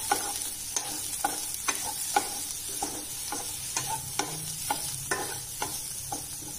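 Diced capsicum, carrot and onion sizzling in oil in a pan while a spatula stirs them. The spatula scrapes and taps the pan in short clicks about twice a second over a steady sizzle.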